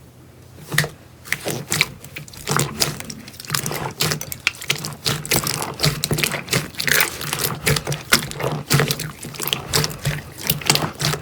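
Slime being squeezed and poked by hand: a quick, irregular run of wet clicks and pops, sparse at first and denser from about two seconds in, over a faint steady hum.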